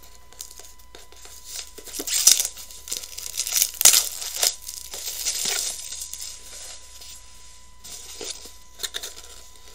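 Packaging being torn open and crinkled by hand: a string of irregular rustling tears, loudest and busiest a couple of seconds in, then a few scattered crinkles.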